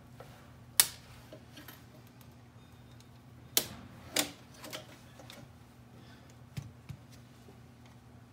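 A few sharp plastic clicks and taps as the navigation unit's ribbon-cable connector latches and faceplate are handled, the loudest about a second in and two more close together near the middle, over a faint steady hum.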